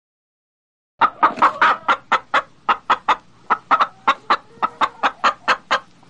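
A hen clucking: a quick, even run of short clucks, about four a second, starting about a second in.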